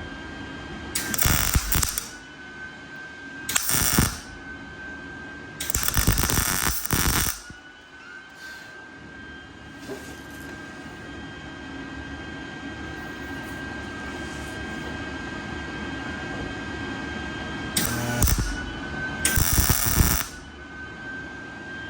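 Metalwork on a van's sheet-metal body: a power tool's steady high whine, cut by five short bursts of harsh, crackling metal noise, each a second or two long.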